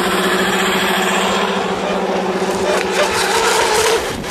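Petrol RC model power boat's small two-stroke engine running flat out at a steady high pitch, climbing briefly in pitch near the end.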